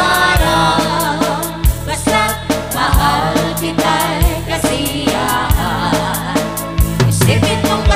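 Dance remix ('rebeat') of a waltz (balse) song: a singing voice over a heavy kick drum hitting about once every second and a quarter.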